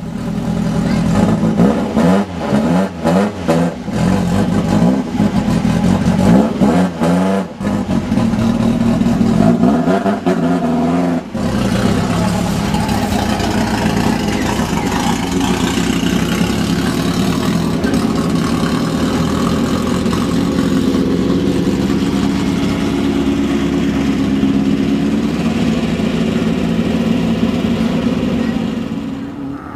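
Off-road desert race buggy's engine revved in a run of quick blips, rising and falling in pitch, for the first eleven seconds or so, then running loud and steady.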